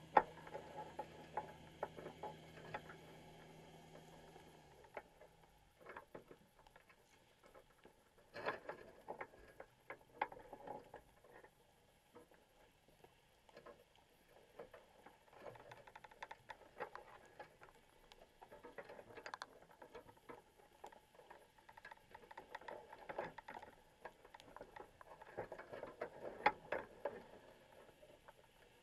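Faint, irregular clicks and taps heard underwater inside a crab trap, coming in uneven clusters. A low steady hum runs underneath and stops about five seconds in.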